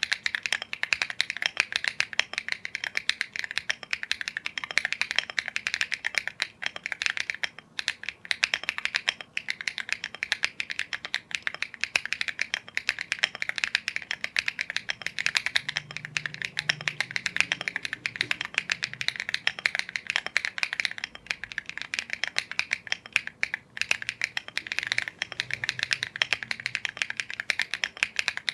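Fast, continuous typing on a Rainy75 mechanical keyboard kit fitted with KTT Macaron Green linear switches: a dense stream of key clacks, broken by a few brief pauses.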